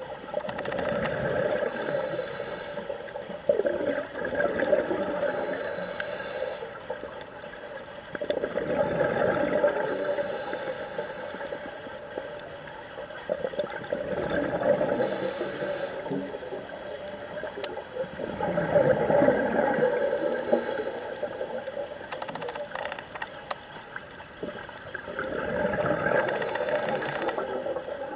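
Scuba diver breathing through a regulator, heard underwater: six surges of exhaled air bubbles, a few seconds apart.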